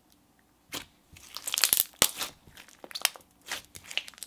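Hand pressing and squishing a thick clear glitter slime with beads in it against a marble surface: irregular crackling, clicking squishes and small pops that start about a second in and come loudest around two seconds in, ending in a sharp click.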